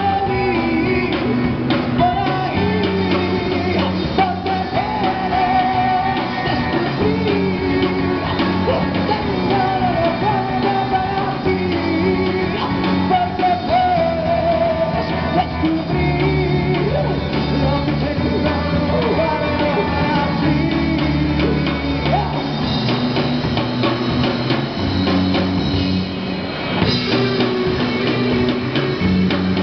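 Live rock band playing: a male singer over distorted electric guitars, bass guitar and a drum kit, continuous and loud.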